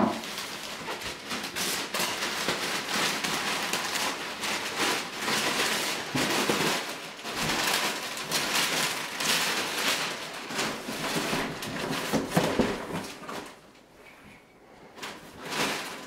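Christmas wrapping paper being torn and crumpled off a large gift box: a dense crackling rustle that stops about thirteen seconds in.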